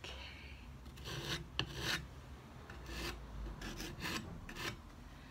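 Putty knife smearing paint across a painted wooden drawer front, a series of short rasping scrapes.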